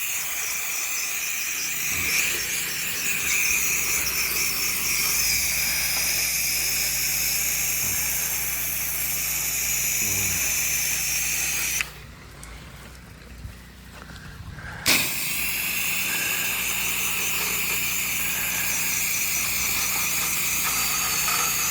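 Soft-wash spray rig spraying chlorine solution: a pump's steady hum under the hiss of the spray. The spray stops for about three seconds past the middle, then starts again.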